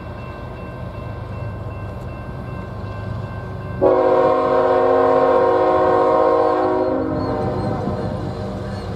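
Approaching GE diesel freight locomotives with a low engine rumble, then the lead locomotive's air horn sounds one long chord of several notes, starting suddenly about four seconds in and lasting about three seconds, the loudest sound here.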